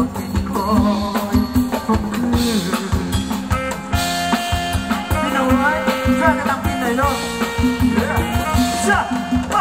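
Live band playing upbeat ramwong dance music: a steady drum-kit beat under a wavering melody line.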